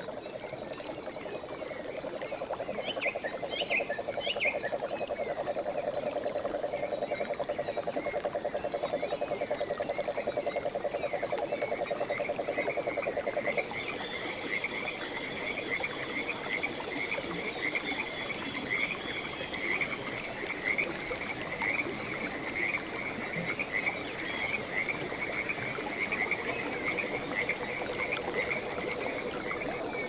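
Frogs croaking: a fast, pulsing low trill that cuts off suddenly about halfway through, followed by higher-pitched calls repeated rapidly and steadily.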